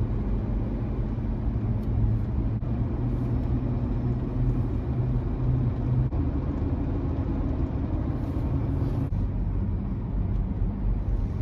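Steady motor-vehicle rumble with a low, even hum.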